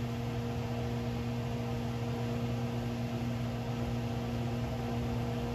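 Kitchen range hood exhaust fan running steadily, a whir with a low electrical hum.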